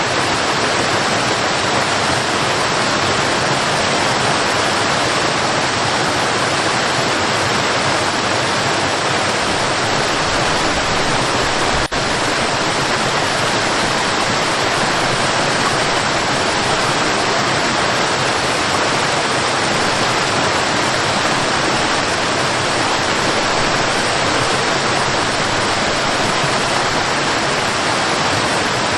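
Waterfall: a steady, full rush of falling water, with one brief dip in level about twelve seconds in.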